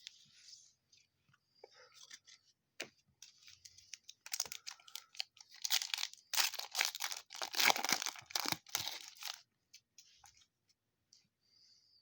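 Foil wrapper of a baseball card pack being torn open and crinkled: a dense crackling from about four seconds in until about nine and a half seconds, with lighter rustles and clicks before and after.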